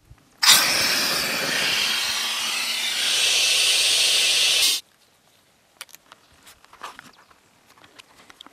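Gas hissing through a fill hose into a tethered balloon, starting abruptly about half a second in and cutting off suddenly after about four seconds. Faint scattered ticks follow.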